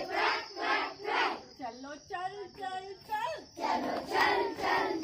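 A group of children chanting and singing a rhythmic action song together, with loud group shouts on the beat about twice a second.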